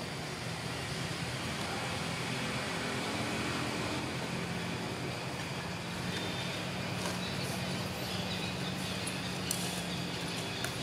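Steady outdoor background noise with a low, steady mechanical hum and a few faint clicks in the last few seconds.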